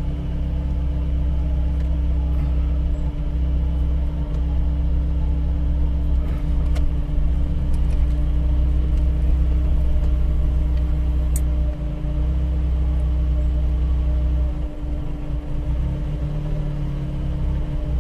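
Motor vehicle engines running steadily with a low rumble and a steady hum, the sound of buses and cars in slow traffic.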